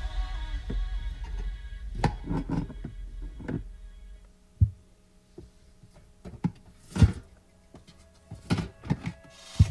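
Drinks cans and bottles knocking against the plastic walls of a small compressor cool box as they are packed in, a handful of separate thunks, with the loudest about seven seconds in. Background music plays in the first part.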